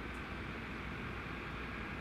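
Diesel railcar engines running steadily: a constant low hum under an even hiss, from a Stadler Regio-Shuttle RS1 diesel multiple unit.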